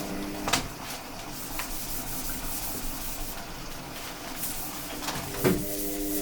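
Kitchen roll rubbed over a self-adhesive PEI sheet as it is pressed down onto a 3D printer's flexible build plate to push out air bubbles. Two sharp knocks stand out, about half a second in and near the end, the second the loudest.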